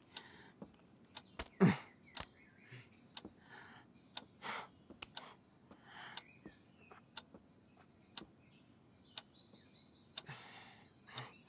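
A woman's agitated breathing, with sighs and a short voiced gasp about two seconds in. Under it run scattered light clicks and taps, like heels on a wooden floor and small handling noises.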